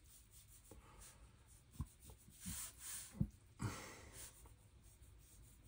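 Faint strokes of a fine watercolour brush on paper, a soft brushing hiss, with a few short soft knocks scattered through, the strongest about three seconds in.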